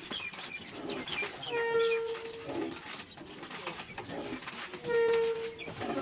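Small birds chirping, with a loud, even, held note about a second long sounding twice.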